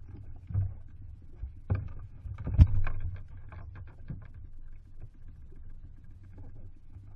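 Heavy thumps and knocks as a gaffed bluefin tuna is hauled over the gunwale into a small boat, the fish and gaff striking the hull; the loudest thump comes about two and a half seconds in. A low steady rumble runs underneath.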